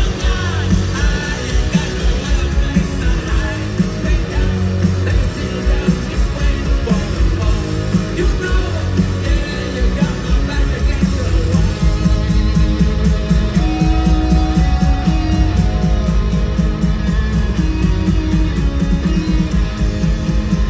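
Rock band playing live in an arena, heard from the stands: electric guitars, bass and a driving drum beat, with sung vocals over the top.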